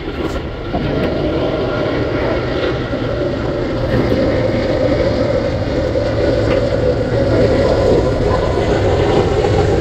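Jet engine noise from an Airbus A350's Rolls-Royce Trent XWB turbofans on final approach with the gear down. It is a steady rushing sound with a mid-pitched drone, growing slowly louder as the aircraft nears.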